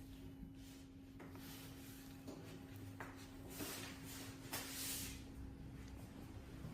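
Faint rustling and handling sounds, with two brief swishes about halfway through, over a steady low hum.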